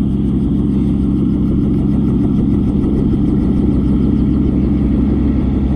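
Motor vehicle engine running steadily at an even pitch.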